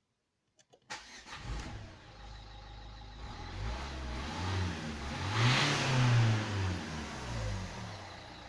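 Opel Combo 1.7 diesel engine running and revved once: the pitch climbs to a peak about five to six seconds in, then falls back. The sound starts suddenly about a second in.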